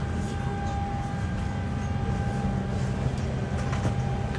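Steady drone of a parked airliner's cabin air and power systems: a low hum with a thin, steady whine over it, and a faint knock near the end.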